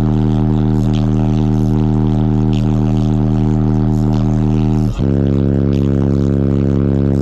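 Four Concrete Audio C3 15-inch car subwoofers playing a loud, steady bass drone. Just before five seconds in it drops out for a moment and a new bass note takes over.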